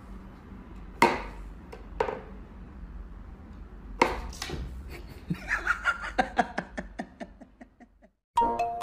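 Wooden knocks from a wooden whack-a-mole cat toy as its side pegs are pushed to pop a toy up through the holes: single sharp knocks about a second apart, then a quicker run of fading clicks with a light ringing tone.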